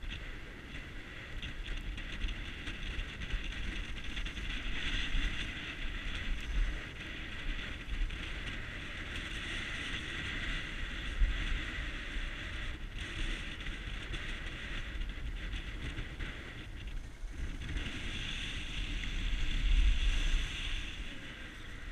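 Skiing downhill: wind buffeting a head-mounted microphone, with skis hissing and scraping over groomed snow, swelling and fading with the turns and loudest near the end.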